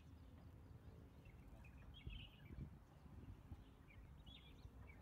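Near silence: faint outdoor ambience of scattered bird chirps over a low rumble.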